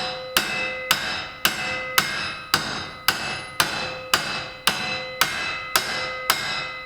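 Hammer striking metal boat hardware in a steady rhythm, about two blows a second, each blow ringing.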